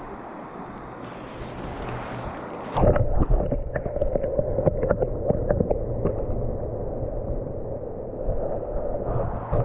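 Pecos River water rushing and splashing at the surface. About three seconds in the sound drops under the surface: a louder, muffled underwater rush of the current with many small clicks and a steady drone.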